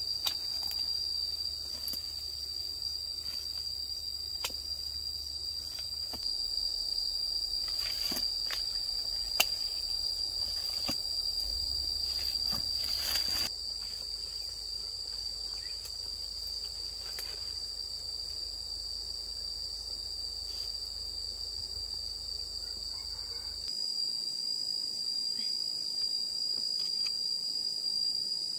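Insects droning steadily in one unbroken high-pitched note, with scattered sharp clicks over it.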